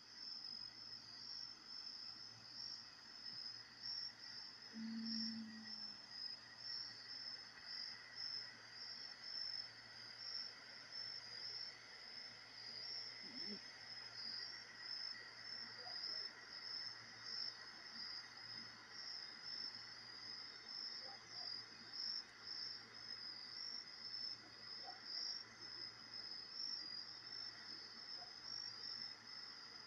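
Night insects, crickets by their sound, chirping in a steady fast-pulsing chorus, over a faint low hum. A brief low tone sounds about five seconds in.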